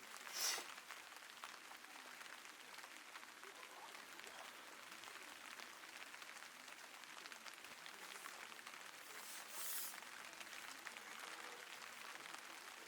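Light rain pattering steadily on tent fabric, a dense faint crackle of drops. Two brief louder swishes stand out, one right at the start and one near ten seconds.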